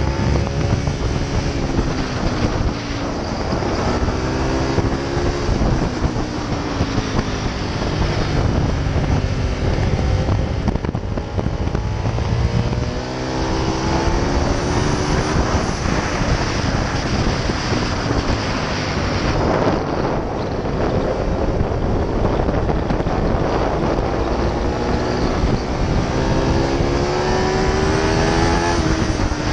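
Ducati Multistrada's V-twin engine under hard acceleration, its revs climbing for several seconds and then dropping again, over and over, at each gear change and on braking. Steady wind rush runs under it.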